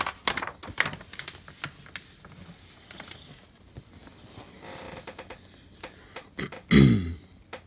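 Paper handling as magazine pages are turned: a quick run of small clicks and rustles, then fainter scattered rustling, with a short vocal sound from the man a little before the end.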